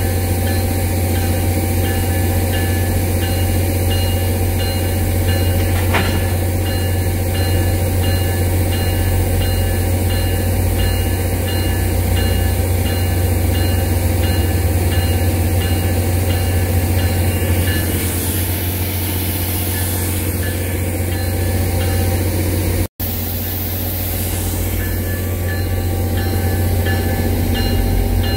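NJ Transit GP40PH-2B locomotive 4218's diesel engine running with a loud, steady low drone at close range; the uploader takes this engine for the cause of the breakdown, saying at times it sounded like it was going to explode. Two bursts of hiss come about two-thirds of the way through.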